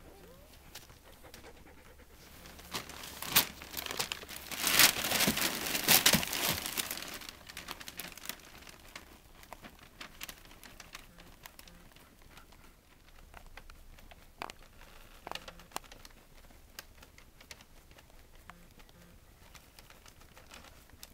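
A collie in labour panting, with the paper bedding under her crinkling and rustling loudly for a few seconds starting about three seconds in, then only in scattered soft crackles.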